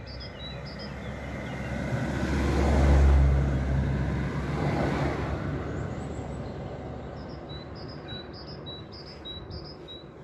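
A motor vehicle passing by, growing louder to a peak about three seconds in and then slowly fading away.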